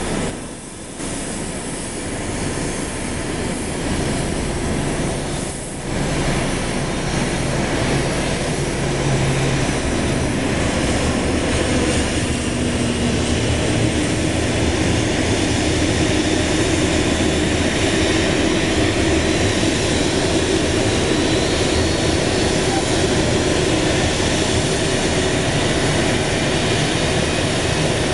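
Jet airliner engine noise on an airport apron: a steady rumble with a faint high whine over it. The sound breaks off briefly about one and six seconds in, then runs on steadily and a little louder.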